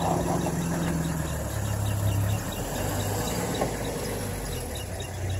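Vehicle engine idling with a steady low hum.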